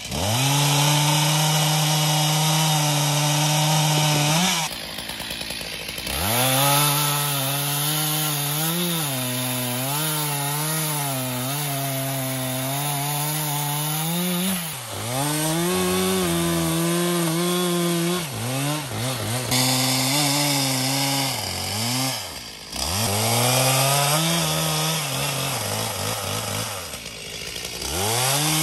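Two-stroke chainsaw at full throttle cutting through fallen dead logs, its engine note sagging and recovering as the chain bites. Between cuts it drops back toward idle a few times.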